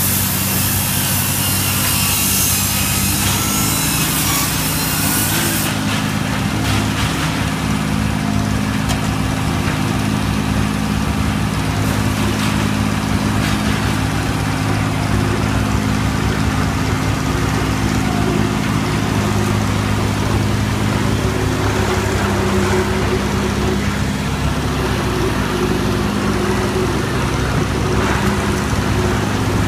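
Engines of a truck-mounted auger drill rig and a skid-steer loader running steadily, with small shifts in pitch and level.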